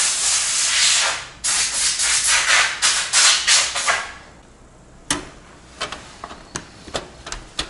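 Air blower hissing in several strong blasts for about four seconds, blowing dust off a PC graphics card. After it stops, a few sharp clicks and knocks as the card is fitted back into the motherboard slot.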